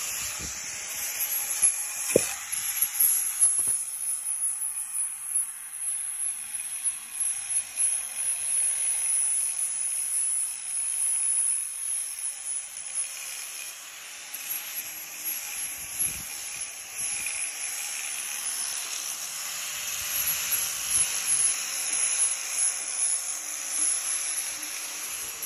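Angle grinder with an abrasive disc sanding the face of a wooden tree-trunk slab: a steady motor whine under a rough hiss of abrasive on wood that swells and eases as the disc is pressed and moved. A sharp click about two seconds in.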